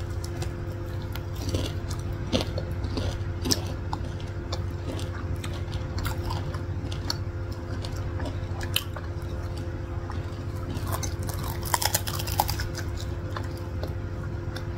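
Corn dogs being bitten and chewed close to the microphone: crisp crunches of fried batter crust, one coated in cornflakes, scattered irregularly over a steady low hum.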